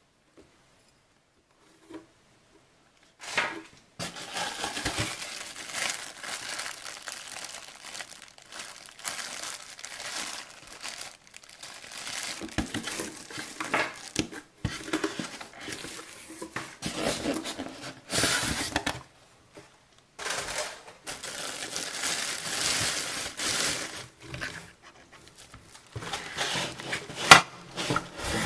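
Clear plastic packaging bag crinkling and rustling as it is handled while a circular saw and its parts are unpacked, starting after about three seconds of near silence and going on in irregular spells with short pauses. A single sharp click near the end is the loudest sound.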